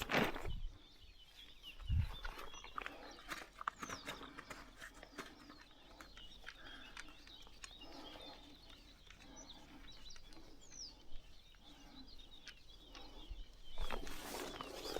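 Small birds chirping and twittering with many short, high calls, with a few scattered clicks, a low thump about two seconds in and a louder rustle near the end.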